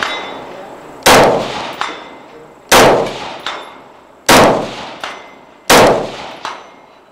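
A .223 Remington AR-15 varmint rifle fired four times at a steady pace, about one shot every second and a half. Each report fades slowly and is followed about three-quarters of a second later by a fainter sharp sound.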